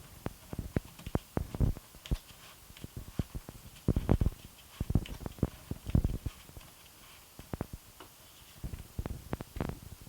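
Irregular small plastic clicks, taps and knocks from handling a camcorder while twisting its lens hood onto the front of the lens, with a few heavier bumps about four seconds in, about six seconds in and near the end.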